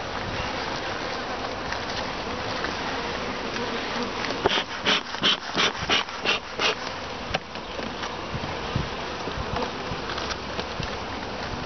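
Honeybees humming steadily around an opened hive, with a quick run of short sharp sounds about halfway through.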